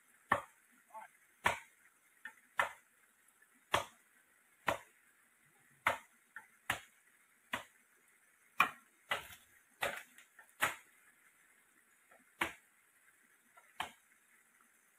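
Machete chopping into a standing bamboo culm: sharp, separate strokes about one a second, in an uneven rhythm with a short pause late on.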